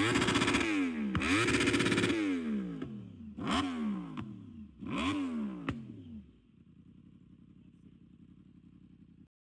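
2016 Yamaha YZF-R1's crossplane inline-four through an SC Project exhaust, revved in place. Two longer throttle blips are followed by two short ones, then it drops back to a steady idle about six seconds in. The sound cuts off suddenly near the end.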